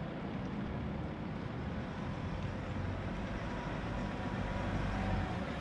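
Chevrolet Silverado 1500's 3.0-litre Duramax inline-six turbo-diesel running at low speed as the truck backs up, a steady low hum that grows slightly louder as it comes closer.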